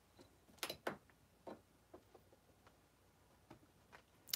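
Near silence broken by a few light clicks and knocks of small objects being handled, the two loudest close together under a second in and another near the end.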